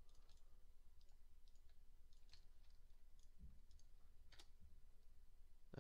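Near silence with faint, scattered clicks of a computer mouse, and one soft low thump about halfway through.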